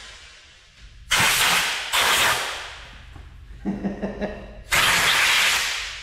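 Compressed-air blow gun blasting in three short bursts of loud hiss, about a second in, around two seconds in and near five seconds, blowing sanding dust off a plastic door handle.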